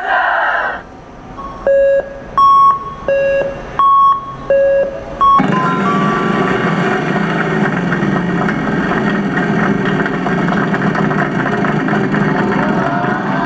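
Wheel of Fortune slot machine sounds: a run of about six short beeps alternating between a low and a high tone, then from about five seconds in a loud, steady wash of the machine's bonus effects with rapid ticking as the top bonus wheel spins.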